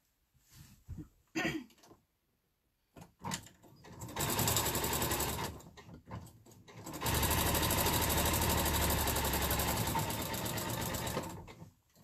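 Electronic domestic sewing machine stitching a seam through layered fabric squares. It first runs for about two seconds, pauses briefly, then runs steadily for about four seconds, with fine rapid needle strokes. Before it starts there are a few light clicks and rustles of fabric being handled.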